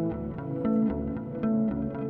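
Background music: plucked guitar notes over a pulsing bass line, with a steady beat.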